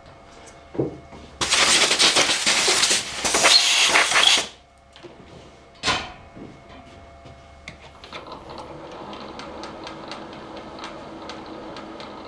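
A loud hiss lasting about three seconds, then a single click. From about eight seconds a machine runs steadily at low speed with light, regular ticking as it drives a tap into drilled aluminium.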